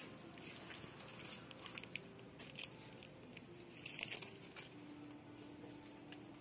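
Quiet shop interior with faint rustling and a few scattered light clicks, with a faint steady hum underneath.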